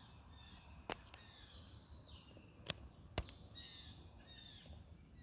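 Faint songbirds chirping in short curved notes. Three sharp taps stand out, one about a second in and two close together around the three-second mark.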